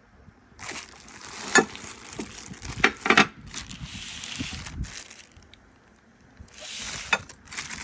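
Rustling, crackling handling noise with several sharp knocks, in two spells with a short lull between them, as large ratcheting wrenches and their packaging are moved about.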